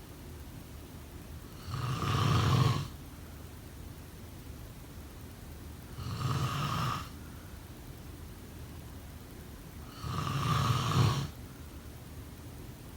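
A person snoring: three snores about four seconds apart, each lasting about a second, with quiet breathing time between them.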